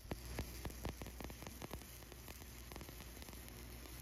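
Stick welding arc crackling and sizzling quietly as the electrode runs a fill pass over the pipe's root pass. The crackles are thick for about two seconds, then thin out to a steady hiss.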